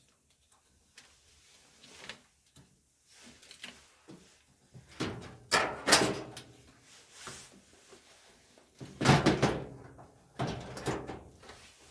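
A series of sharp knocks and clatters, loudest in clusters about five to six seconds in and again about nine seconds in, with another shortly after: hard parts being handled and set against each other.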